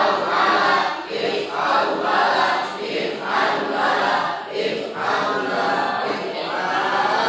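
A group of students chanting Arabic verb patterns (wazan fi'il) in unison, a rhythmic recitation in short phrases about a second apart.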